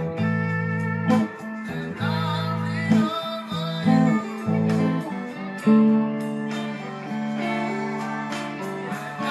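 Blues played on a Cort electric guitar, picked lead notes over held low chords that change about once a second.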